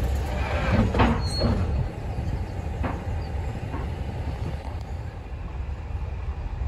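Heritage passenger train hauled by a Class 31 diesel locomotive running along the line: a steady low rumble of wheels and carriage, with a few brief knocks about a second in and again near three seconds.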